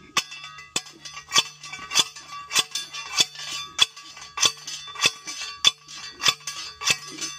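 Hand-held post driver slamming down onto a metal stake, driving it into the ground: a steady series of metallic clangs, about every 0.6 s, each ringing briefly.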